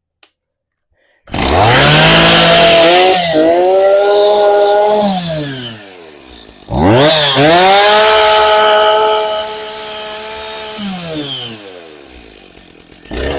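Stihl chainsaw with a 90%-plugged air filter starting and revving to full throttle twice, dropping back to idle in between and after, with a short blip near the end. It holds high revs despite the choked filter because its IntelliCarb carburettor compensates.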